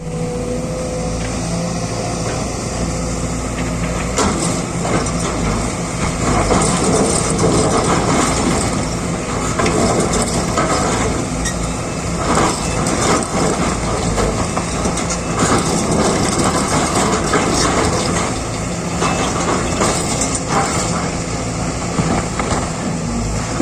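Sumitomo SH210-6 hydraulic excavator's diesel engine running steadily under load. From about four seconds in, the bucket scrapes, grinds and knocks as it cuts into hard, compacted sandy ground.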